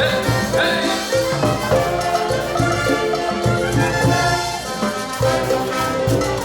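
Peruvian brass band playing an instrumental cumbia passage: horns carry the melody over a steady cumbia beat.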